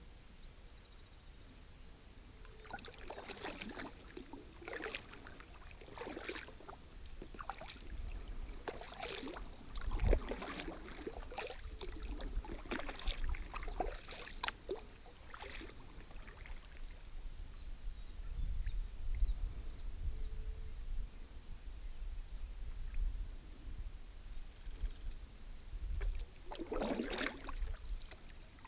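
Kayak paddle blades dipping and splashing in the water, a dozen or so strokes in the first half and one more near the end. A steady high insect drone runs underneath.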